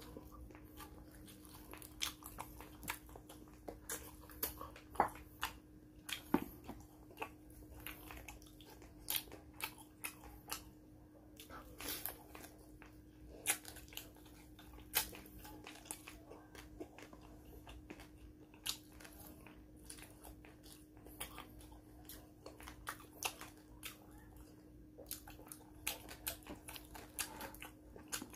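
A person chewing and eating fried fish with rice by hand: irregular wet clicks and smacks of the mouth and fingers, some sharper than others, spaced a second or so apart.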